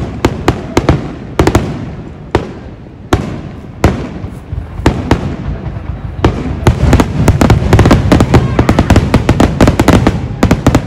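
Aerial fireworks shells bursting. First come single bangs a fraction of a second to a second apart, then from about six seconds in a dense, rapid barrage of bangs and crackling, the display's finale.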